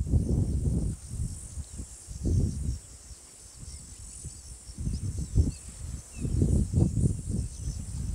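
Steady high buzzing of an insect chorus, with loud, irregular low rumbling surges that come and go every second or so and ease off for a moment midway.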